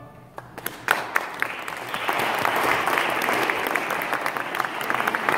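Audience applauding in a church. A few scattered claps start about half a second in and quickly swell into steady applause.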